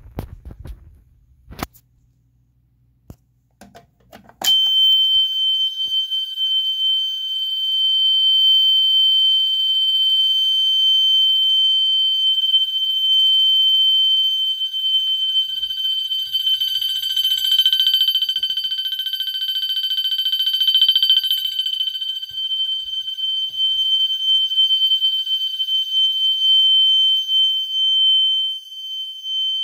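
Fire alarm sounding a loud, continuous high-pitched tone. It switches on suddenly about four seconds in, after a few faint clicks.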